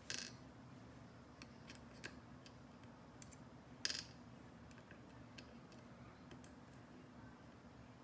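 Faint metallic clicks and ticks from small lock parts and tools being handled while a pin-tumbler lock is taken apart. There are two brief scrapes, one at the very start and one about four seconds in.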